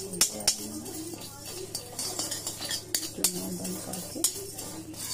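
Spatula stirring and scraping dry ingredients in a steel kadhai, with irregular sharp clinks of the spatula against the pan's metal sides.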